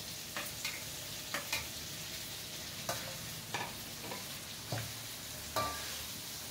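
Fish sambal sizzling in a wok over a gas burner while a spatula stirs it, with irregular clinks and scrapes of the spatula against the pan.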